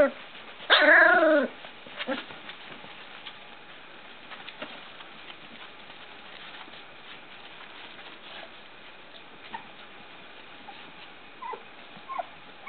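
Three-week-old puppy giving one loud, drawn-out whining cry about a second in, then quiet scuffling of puppies moving about, with two faint short squeaks near the end.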